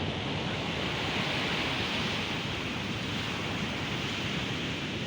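Surf breaking on a beach at high tide in a strong wind: a steady wash of noise that swells a little about a second in.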